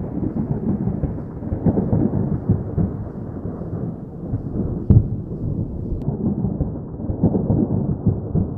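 Deep, continuous rumbling with a single sharp bang about five seconds in.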